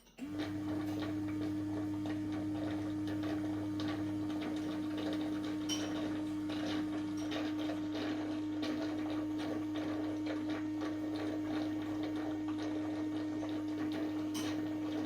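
Samsung AI Steam Ultra robot vacuum's clean station sucking up dirty water from the mop area: a motor starts about a moment in and hums steadily, with faint rapid ticking over it.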